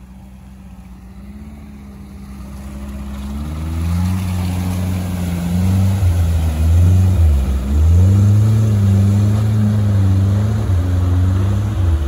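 Off-road 4x4's engine running, quiet at first and getting much louder from about three seconds in, its revs rising and falling.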